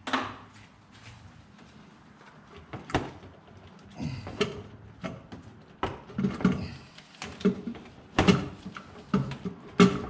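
Hand tools clicking and clunking against metal while bolts are undone on the engine's intake plenum. The knocks are irregular: a few in the first half, then coming thick and fast near the end.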